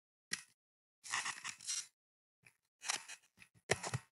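Computer keyboard typing: short key clicks, singly and in quick clusters, with silent gaps between them.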